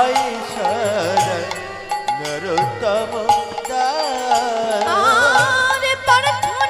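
Kirtan music: a melody with sliding, wavering pitch over drum and cymbal strokes.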